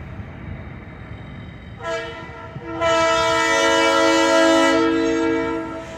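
Air horn of a GP-38 diesel locomotive, out of sight, sounding a chord of several tones: one short blast about two seconds in, then one long loud blast for about three seconds. A low rumble runs underneath.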